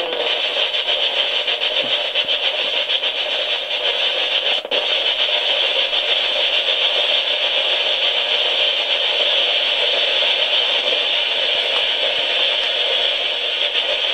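Spirit box sweeping through radio stations: a steady, loud wash of radio static, finely chopped as it scans, with a brief break about four and a half seconds in.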